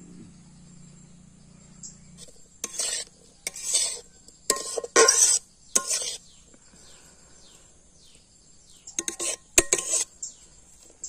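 A metal spatula scrapes and stirs fried diced vegetables around an aluminium kadai. There is a run of loud scraping strokes from about three to six seconds in, and another short flurry near the end.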